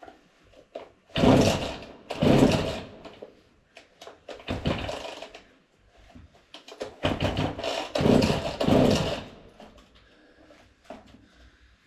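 Husqvarna 40 two-stroke chainsaw being pull-started, its recoil starter cord yanked about five times in short, rasping pulls that crank the engine over. The engine does not catch.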